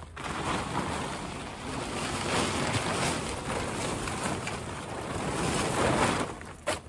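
Plastic poly tarp being pulled back and dragged over dead leaves, a continuous crinkling rush that stops near the end.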